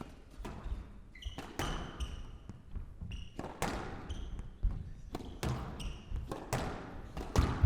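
Squash rally: the ball cracking off rackets and the court walls at irregular intervals, about one hit a second, with brief shoe squeaks on the court floor.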